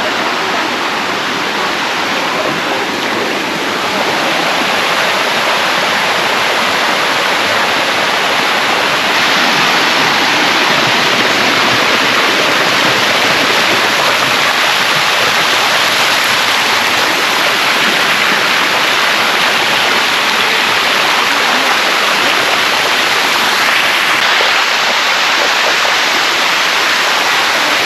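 Water of the Sticky Waterfall rushing steadily over its rocks, a loud, even rush that grows a little louder about nine seconds in.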